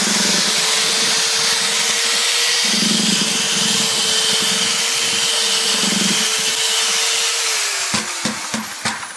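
Corded drill with a paddle mixer running steadily, churning a gritty foundry-sand mould mix in a plastic bucket, with a constant motor whine over a scraping hiss. The motor winds down about eight seconds in, followed by a few sharp knocks.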